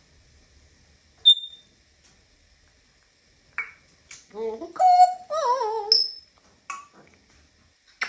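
African grey parrot talking in a mimicked human voice, "Lulu... good boy", in the middle of the stretch. A short, sharp high whistle comes about a second in, and another brief whistle follows right after the words.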